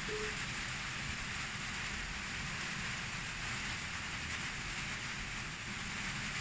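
Steady, even background hiss with no distinct event, and a very short faint tone right at the start.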